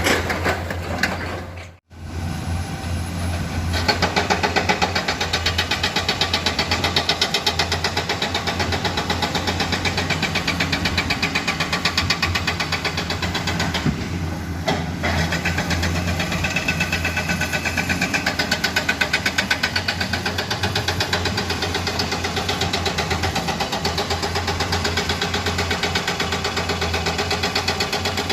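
Diesel engine of a heavy excavator running steadily with a fast even throb. The sound cuts out briefly about two seconds in.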